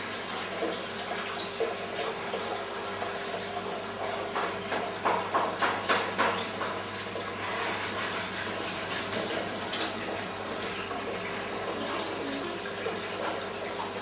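Steady bubbling and trickling of aquarium water from an air stone and filter, with a low steady hum under it. A few louder splashy pulses come about five to six and a half seconds in.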